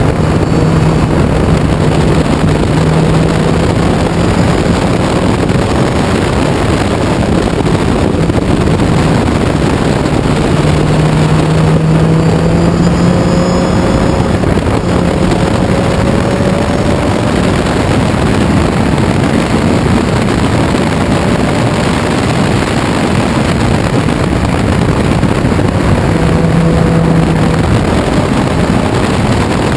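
Onboard sound of a 1968 Ginetta G16 sports racer at speed: the engine running hard under a heavy rush of wind and road noise. The engine note holds steady for long stretches and climbs slowly for a few seconds in the middle.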